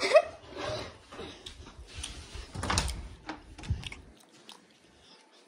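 Rustling, rubbing and bumping of a handheld phone's microphone as it is carried and swung about, with a few dull thuds. It ends in near-quiet room tone.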